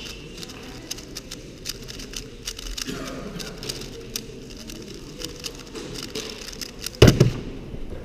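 Weilong WRM speedcube being turned fast, its plastic layers clicking in quick irregular runs. About seven seconds in, a loud knock as the cube is put down on the mat and the hands hit the timer to stop the solve.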